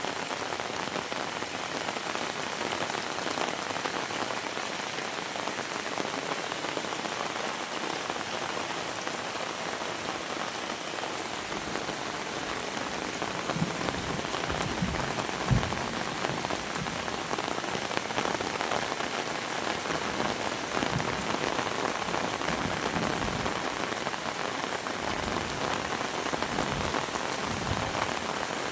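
Heavy rain pouring steadily in a dense, even hiss, with a few short low thuds from about halfway through to near the end.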